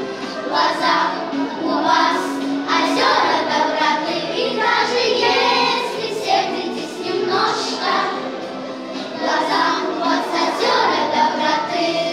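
A group of children singing together in unison over music with a steady beat.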